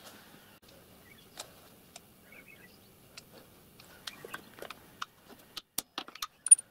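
Light metal clicks and clinks of steel letter punches and hand tools being handled at a milling machine vise, growing busier in the second half, with one sharp, ringing metallic clink near the end.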